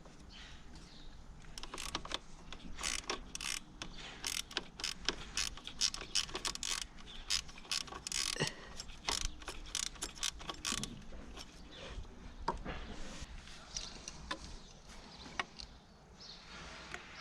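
Irregular clicks, knocks and scrapes of hands and tools working silicone coolant hoses and their clamps onto the pipes, busiest in the first two-thirds and thinning out near the end.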